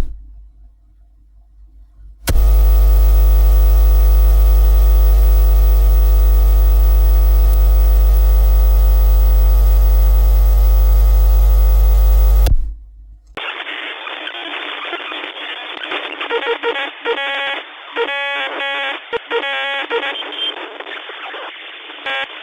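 Radio receiver on an antenna picking up electrical interference. A loud, steady buzz with many evenly spaced overtones starts a couple of seconds in and stops suddenly about ten seconds later. A moment after, a narrower band of static hiss comes in, with bursts of repeating warbling tones.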